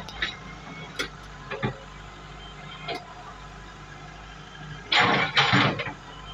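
Hitachi hydraulic excavator's diesel engine running steadily under work, with a few short knocks from the working arm and two loud noisy bursts about five seconds in.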